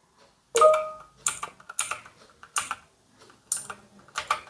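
ANT Esports MK3400 Pro V3 mechanical keyboard keys being pressed one at a time while testing, giving separate sharp clacks about one to two a second, some as quick double strikes. The first, loudest press about half a second in carries a brief tone.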